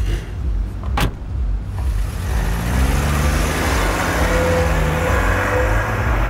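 Red Dodge Challenger's engine running, with two sharp knocks about a second apart near the start. From about two seconds in the engine pitch rises and a rushing noise swells as the car accelerates away.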